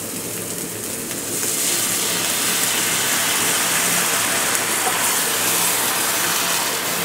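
About half a cup of water poured into a pot of ground spices frying in hot mustard oil. The frying sizzle swells into a louder, steady hiss about a second in.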